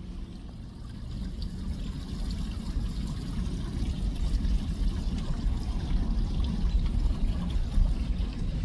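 Water running over a small ice-covered weir on a creek: a steady rushing noise, mostly low, that grows louder over the first few seconds.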